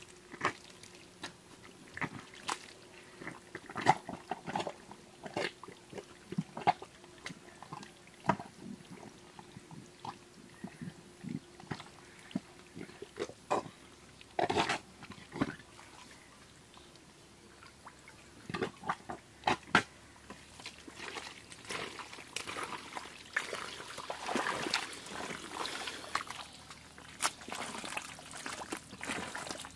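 Hands digging and groping in thick, wet mud: irregular squelches, sucking sounds and wet slaps, coming thicker toward the end.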